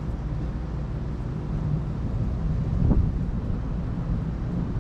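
Thunderstorm ambience: a steady low rumble with wind on the microphone, and one short, sharp thump about three seconds in.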